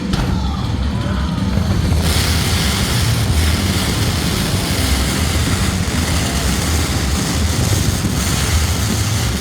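Loud fireworks-show sound with a heavy, pulsing bass. About two seconds in, a dense hiss spreads over the high end and holds.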